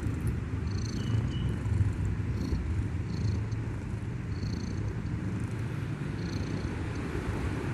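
Kitten snoring loudly in its sleep: a continuous low, rumbling snore.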